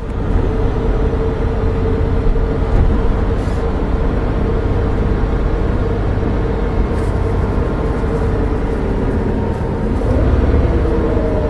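A Volvo B7R coach's rear-mounted Volvo D7C six-cylinder turbo diesel engine and ZF Ecomat automatic gearbox running as it drives, heard inside the cabin: a steady drone with a constant tone over the rumble of the road. Near the end a second pitched note joins in as the drive changes.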